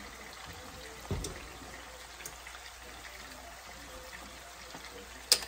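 Lemon juice squeezed from a plastic squeeze bottle, trickling onto chicken thighs and onions in a frying pan over a faint steady hiss. There is a dull thump about a second in and a sharp click near the end.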